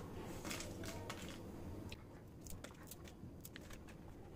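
Faint crackling and crunching of crispy shallow-fried grated-potato roastie being broken by hand into bite-size pieces: a scatter of small, sharp crackles.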